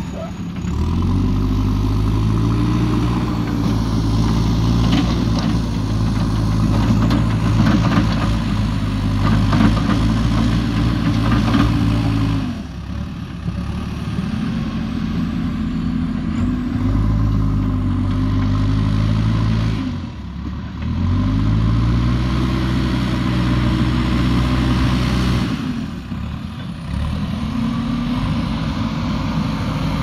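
JCB 3DX backhoe loader's diesel engine working under load. It revs up and holds for several seconds, then drops back toward idle, rising and falling about four times as the loader drives and handles soil.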